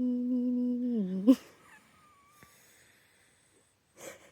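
A person humming a held note: it steps back down in pitch about a second in and breaks off with a quick upward flick and a sharp click. The rest is near quiet, with a short breath near the end.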